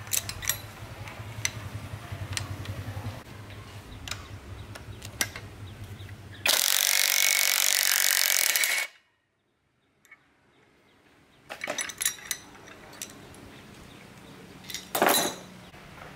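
A power tool runs for about two and a half seconds with a steady whine, spinning the centre screw of a three-jaw gear puller to draw a multi-groove belt pulley off its shaft. Before it starts there are scattered light metal clinks as the puller is fitted, and there are a few more clinks near the end.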